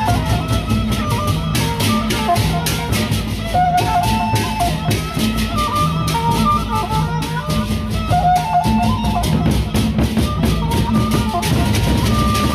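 Sasak gendang beleq gamelan playing: large barrel drums beaten in a steady rhythm under rapid clashing cymbal strokes, with gongs sounding a short melodic figure that repeats every few seconds.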